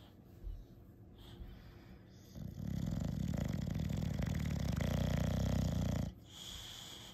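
English bulldog giving one long, low, fluttering snore-like grumble for about four seconds, starting about two and a half seconds in, as it relaxes under an ear scratch.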